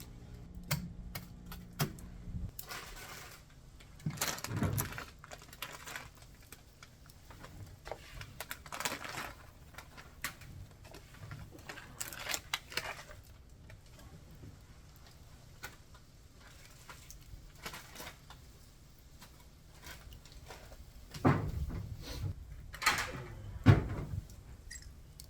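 Irregular clicks, rustling and knocks, as of things being handled, with a few louder thumps near the end.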